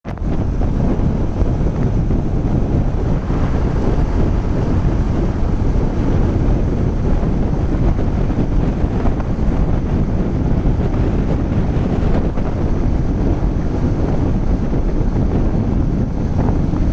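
Steady, heavy wind rush buffeting the microphone from riding a Yamaha R15 V3 motorcycle at about 75 km/h, with road and engine noise blended underneath.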